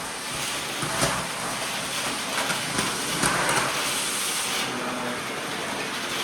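Vacuum cleaner running steadily with a hissing suction noise, with a few brief knocks.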